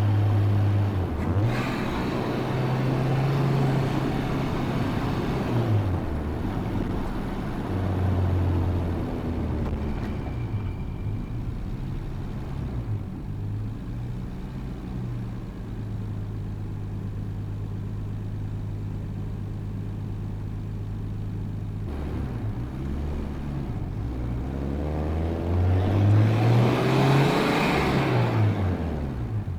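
Nissan Skyline R34 GT-T's turbocharged 2.5-litre straight-six with a full exhaust system, on the move. The revs rise and fall through gear changes in the first few seconds, then hold steady at a cruise. Near the end the engine revs up hard under acceleration, the loudest part, and then eases off.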